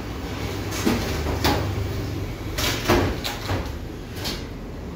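Steel parts being handled and fitted together, giving a series of short, irregular metallic knocks and clinks over a steady low hum.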